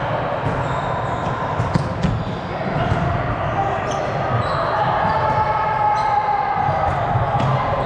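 Volleyball game in a gym: balls smacking off hands and the floor over a steady din of players, with two sharp hits close together about two seconds in.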